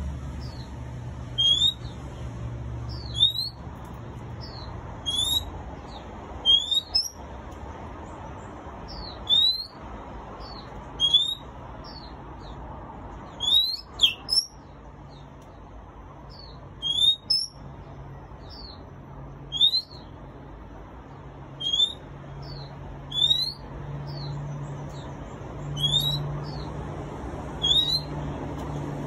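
Caged black-and-white songbird calling: short rising whistles, each followed by a few quick high notes, repeated every second or two over a steady low hum.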